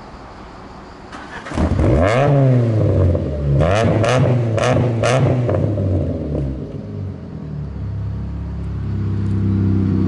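Lada 2114's four-cylinder engine, with a loud damaged exhaust, revving in several blips whose pitch rises and falls, with a few short sharp clicks among them. It settles back to a steady idle about eight seconds in.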